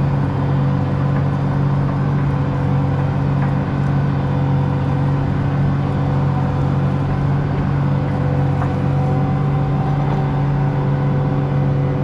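John Deere 8270R tractor's six-cylinder diesel engine running steadily under load, pulling a mole plough through the soil at a slow, even pace.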